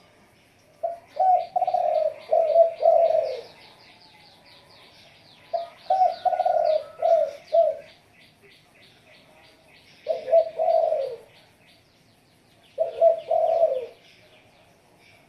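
Spotted dove cooing in four multi-note phrases spaced a few seconds apart, with a fast run of high chirps from another small bird over the first part.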